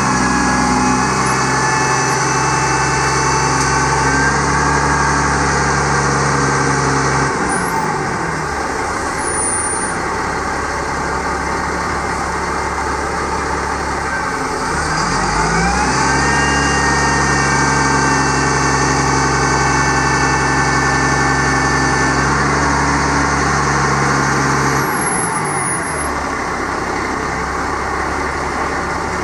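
Cat C7 diesel engine of a bucket truck running the boom's hydraulics, with a high whine above the engine note. The engine speed drops back about seven seconds in, rises again with the whine at about fifteen seconds, and drops again near the end. This is the throttle stepping up while the boom is working and falling back between moves.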